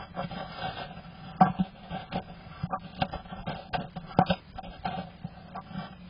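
Tape being picked and pulled away from the entrance hole of a wooden nest box, heard from inside the box: irregular scraping and rubbing with sharp taps on the wood, several a second.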